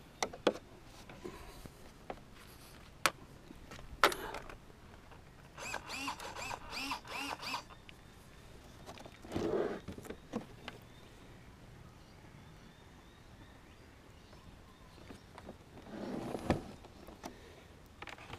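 Scattered clicks and knocks from handling the plastic hull and hatch of an RC boat, with its motors not running.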